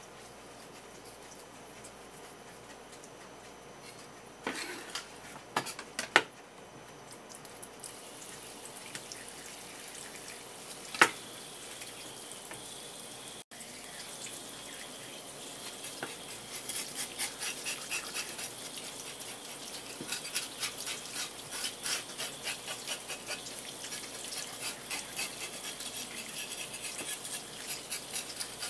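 A few sharp knocks and clicks of a kitchen knife on a wooden cutting board. Then tap water runs over a horse mackerel while the knife scrapes off its remaining scales in quick, repeated strokes.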